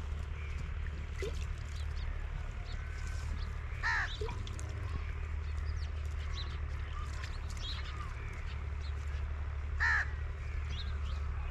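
A crow cawing twice, about six seconds apart, over faint chirping of small birds.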